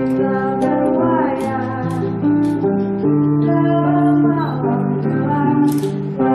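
A song playing: a high singing voice with gliding pitch over sustained instrumental chords.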